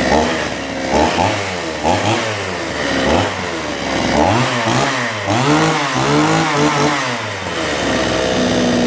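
Two-stroke chainsaw, just started, revved up and down over and over, about once a second. It settles to a steady speed near the end.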